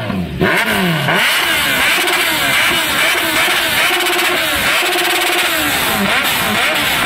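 Sport motorcycle engine revved hard while standing still: repeated quick throttle blips, the pitch rising and falling, with a few revs held high for about half a second.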